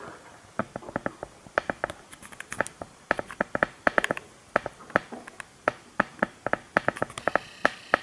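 A rapid, irregular series of sharp clicks and taps, several a second, starting about half a second in.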